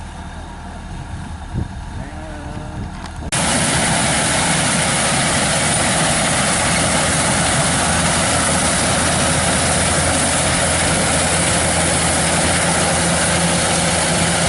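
Kubota DC-105X combine harvester running steadily. About three seconds in, the sound jumps abruptly to a much louder, dense, steady machine noise.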